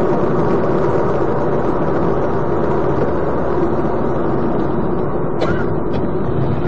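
Steady engine and tyre noise of a car driving on the open road, heard from inside the cabin. Two short, sharp sounds come near the end.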